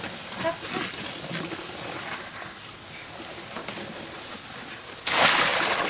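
Cauldron of grape must boiling hard over a wood fire and foaming up after pekmez earth has been stirred in to take out its sourness, with a steady seething hiss. About five seconds in, a sudden much louder hiss lasts about a second.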